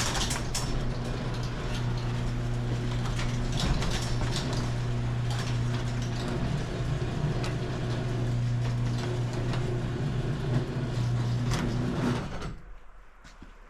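EGO 28-inch battery-powered snowblower running with a steady electric-motor hum and scattered clicks and rattles, then winding down about twelve seconds in.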